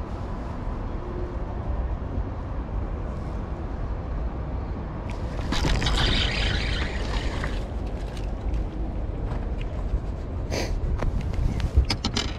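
Outdoor boat-fishing noise: a steady low rumble of wind on the microphone, with a splashy hiss lasting about two seconds midway, as a fish is reeled to the boat, and a few sharp clicks near the end.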